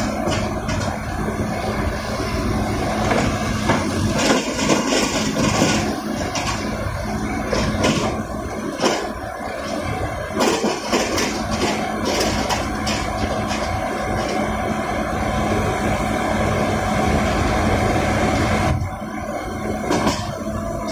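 Small crawler rotary drilling rig at work: its engine and hydraulics run steadily while the auger turns and is lowered, with scattered knocks and clatter. The level dips about two seconds before the end.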